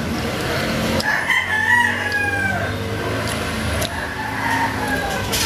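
A rooster crowing: one long crow starting about a second in, followed by a fainter call near the end.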